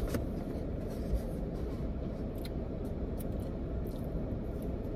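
Steady low background rumble with a few faint clicks from eating.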